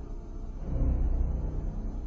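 Dark, ominous background music with low sustained tones that swell in loudness a little under a second in.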